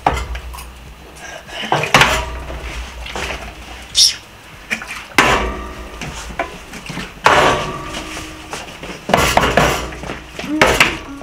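A series of separate knocks and clinks about every one to two seconds: a plastic drink bottle being flipped and landing on a glass tabletop, and metal forks clinking against a plate of meat, one clink ringing briefly about four seconds in.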